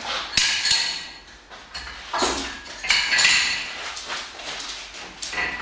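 Metal clanks and clicks from the hardware of a Finnlo Maximum FT1 cable tower as it is adjusted by hand, in about four separate short bursts.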